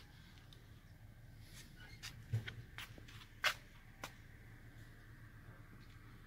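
Quiet low steady hum with a handful of light clicks and taps between about two and four seconds in, the sharpest about three and a half seconds in.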